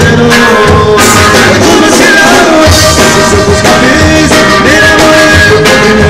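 Live norteño band music: button accordion, bajo sexto and drums playing a steady beat, with a male voice singing over them.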